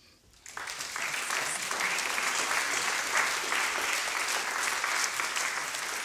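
Audience applauding: many people clapping, starting about half a second in and keeping up steadily.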